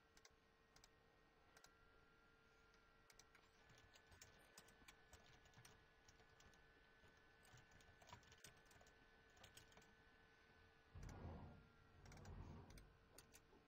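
Faint computer keyboard typing and mouse clicks, scattered key presses over a faint steady tone. About eleven seconds in there are two short, louder low rumbles.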